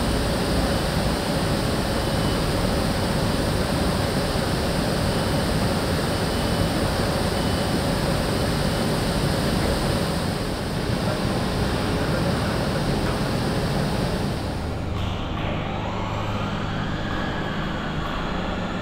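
Steady machinery noise, a dense rumble and hiss with a faint hum. About fifteen seconds in, the highest part falls away and a faint whine rises in pitch.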